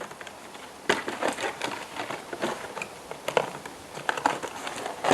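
Scissors snipping and packaging crinkling as a mudguard box is cut open: an irregular run of sharp clicks and rustles, the loudest about a second in.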